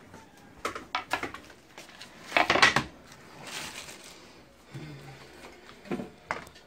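Knocks and clatter of kitchen things being handled and set down on a tiled counter, among them a plastic oil bottle and a plastic blender jar. The loudest clatter comes about two and a half seconds in and is followed by a brief hiss, with two more knocks near the end.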